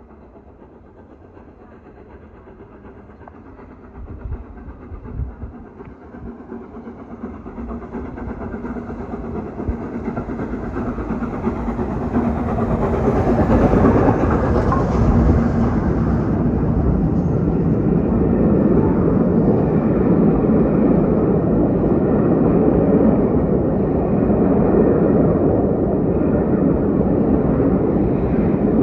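Steam locomotive 60163 Tornado, a Peppercorn A1 Pacific, approaching at speed with its train, growing steadily louder over about a dozen seconds. It then passes close by, and the coaches rumble past steadily with a clickety-clack on the rails.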